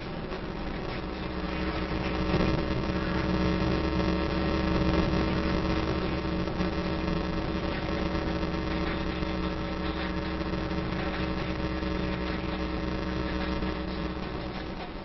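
Steady car cabin noise while driving: engine drone and road rumble heard from inside the car, swelling a little louder a couple of seconds in.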